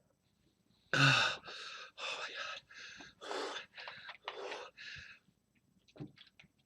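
A man gasps with a short voiced cry, then pants in quick, harsh breaths, about two a second, his mouth burning from a sun-dried ghost chili pepper. Faint clicks follow near the end.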